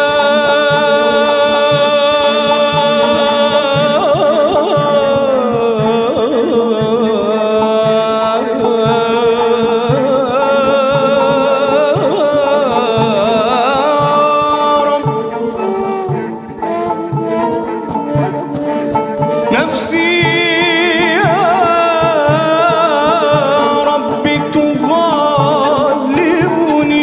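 Solo and choir voices singing a devotional Arabic song in long, ornamented lines with vibrato and sliding pitch, over a soft steady beat.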